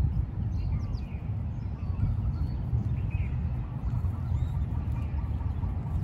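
Scattered short chirps and calls from several small birds over a loud, steady low rumble.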